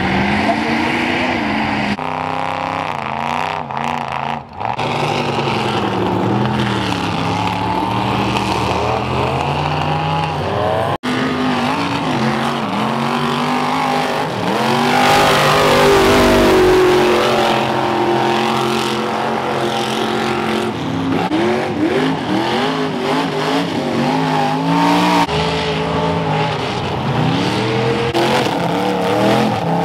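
Lifted mud-bogging trucks on oversized tires revving hard through deep mud, their engine notes rising and falling with the throttle, and the loud churn of tires and spraying mud. The sound jumps abruptly from one truck to another several times.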